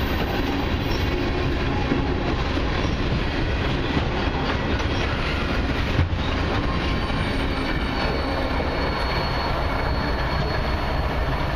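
Cars of a long freight train rolling past: a steady rumble and rattle of steel wheels on rail, with one sharp knock about halfway through and a faint high wheel squeal from about seven seconds in.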